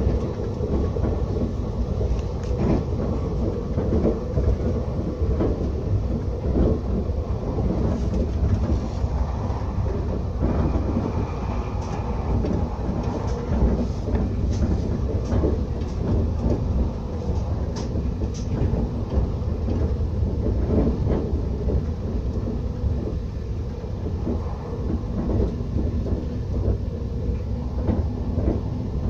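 Regional passenger train running at speed, heard from inside the carriage: a steady low rumble of wheels on the track, with scattered sharp clicks and knocks, several of them between about 8 and 18 seconds in.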